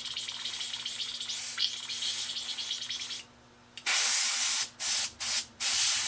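Paint sprayer spraying thinned black paint in four short hissing bursts, starting about four seconds in. Before them comes a quieter, fast ticking hiss that stops about three seconds in.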